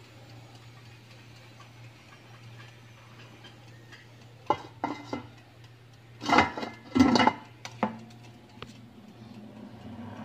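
Several sharp clinks and knocks of metal and glass, the loudest in a cluster a little past the middle, as a wire rack and the glass bowl and lid of a halogen convection oven are handled. A faint low hum sits underneath.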